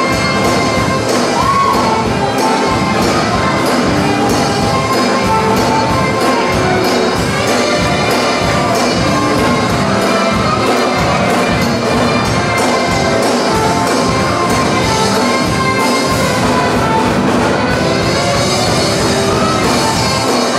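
Loud church music with a steady beat, playing without a break.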